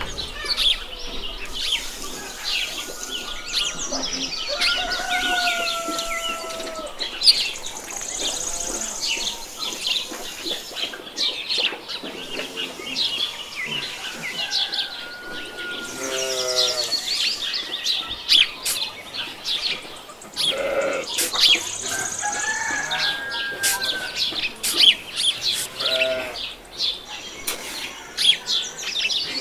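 Birds chirping and tweeting throughout, with a few longer whistled calls and a short farm-animal call about 16 seconds in.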